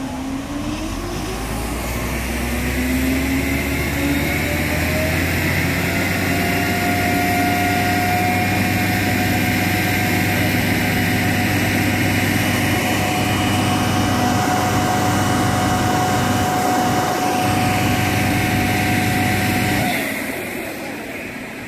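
EmiControls MFT35-H firefighting turbine (a fan-driven water-mist cannon) spinning up and spraying, its whine rising in pitch over the first several seconds and then holding steady over a rush of air and mist. Near the end the sound drops away sharply.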